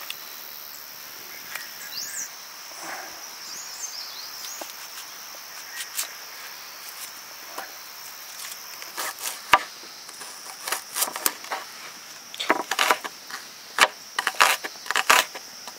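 Sharp, irregular wooden knocks and cracks in quick clusters from about nine seconds in, over a steady high drone of insects. A few short chirps come between about two and four seconds.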